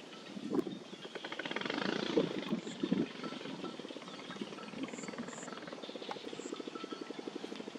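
Water buffalo wading and feeding with its head under water: water splashes and sloshes in the first few seconds. A steady, rapid pulsing throb takes over from about halfway through.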